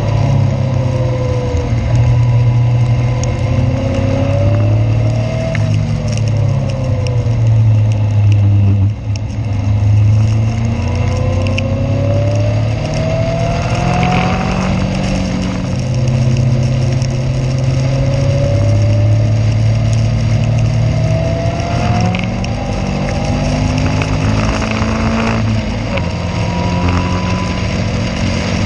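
Caterham race car engine heard onboard at racing speed. Its pitch climbs again and again as it accelerates, dropping at each gear change, with a brief lift off the throttle about nine seconds in.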